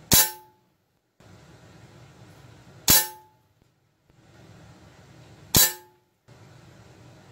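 Benjamin Prowler .22 nitro-piston break-barrel air rifle fired three times, about two and a half seconds apart. Each shot is a sharp crack with a brief metallic ring.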